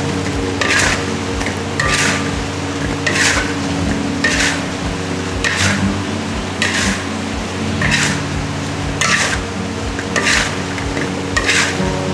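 A long-handled utensil scraping around a large steel wok, stirring sweet potato doughnuts (kuih keria) to coat them in melted sugar. The scrapes come in a steady rhythm, about one every second, over a low steady hum.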